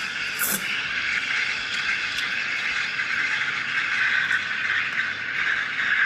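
Gaggia Classic Pro's steam wand hissing steadily into milk in a stainless steel pitcher as the milk is steamed, with a brief sharper burst about half a second in.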